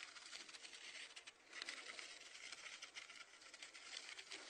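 Faint crackling hiss with no distinct sound event; it dips briefly about a second and a half in.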